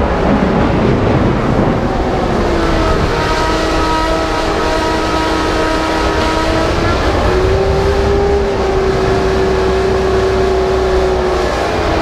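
Ferrari engine running loud at steady revs. Its note holds one pitch, then steps slightly higher about seven seconds in, over a heavy low rumble.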